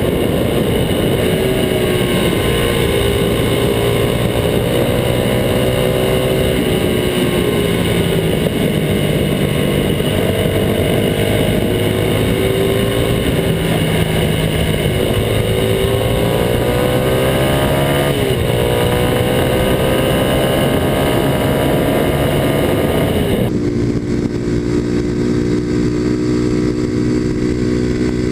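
Kawasaki KLX250SF's single-cylinder four-stroke engine through a Muzzy exhaust, pulling hard with its note rising and dropping again and again through the gears, under heavy wind rush on the camera. Near the end the wind hiss cuts away and the engine holds a steady cruising note.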